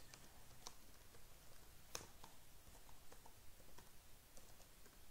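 Faint typing on a computer keyboard: scattered, irregular key clicks, the loudest about two seconds in.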